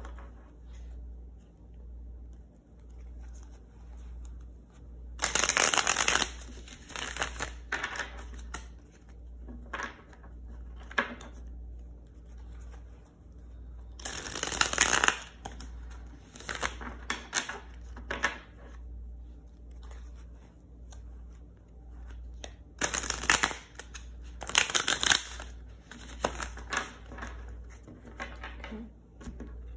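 A deck of tarot cards being shuffled by hand: three louder bursts of shuffling about nine seconds apart, each a second or two long, with softer card rustles between, over a low steady hum.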